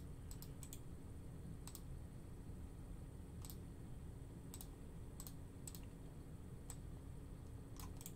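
Faint, scattered clicks of a computer mouse and keyboard, about ten at uneven intervals, as a list is copied and pasted into a spreadsheet, over a low steady electrical hum.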